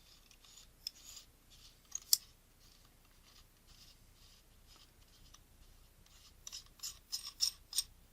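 Metal retaining ring being threaded back onto a Nikkor 135mm f/2.8 lens barrel by hand: light scraping and clicking of small metal parts. There is a sharp click about two seconds in and a run of louder clicks near the end.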